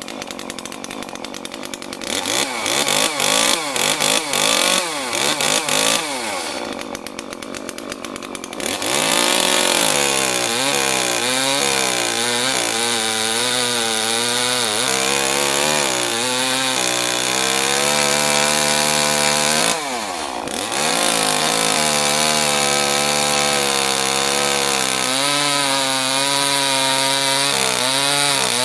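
Echo CS-355T top-handle two-stroke chainsaw idling, then revved up and back down several times, then held at full throttle cutting through a log. The engine note wavers under the load of the cut, and drops back briefly about two-thirds of the way in before the saw bites again.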